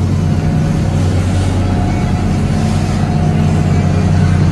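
Lobster boat's engine running steadily underway, a deep even drone with no change in pitch.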